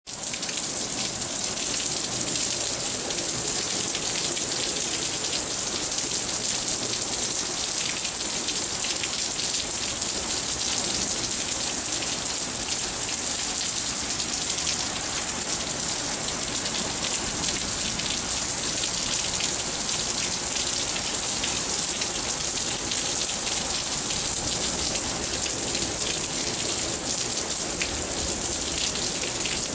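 Heavy rain falling steadily in a thunderstorm: a constant hiss with many fine drop ticks, and no thunderclap standing out.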